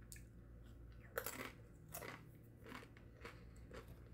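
Faint crunching of a tortilla chip with guacamole being bitten and chewed, a crisp crunch every half second or so, the loudest about a second in.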